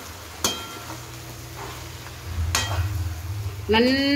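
A metal slotted spoon stirring and scraping thick amla pickle frying in oil in a pan, with two sharp clacks of the spoon against the pan about two seconds apart, over a low steady hum. A short pitched, voice-like sound comes in just before the end.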